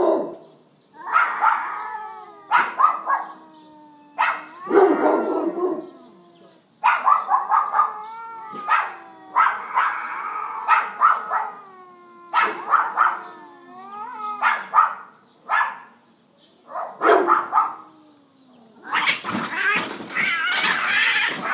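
Cats yowling and caterwauling at each other in a fight, a run of drawn-out howls that bend up and down in pitch, with a louder, harsher outburst of screeching near the end.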